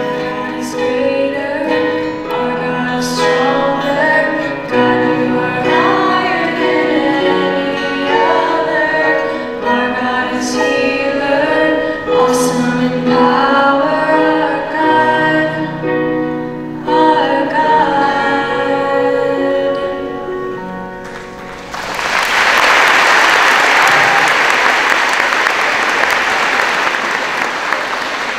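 A worship song sung by a young woman to acoustic guitar, ending about three-quarters of the way through, followed at once by sustained audience applause.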